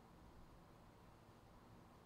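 Near silence: faint steady room tone with a low hum.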